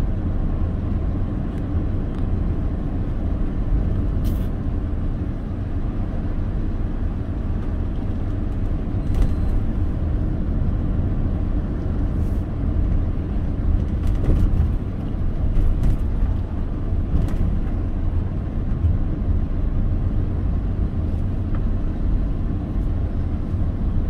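Car driving along a road: a steady low rumble of engine and tyre noise, with a few faint light ticks.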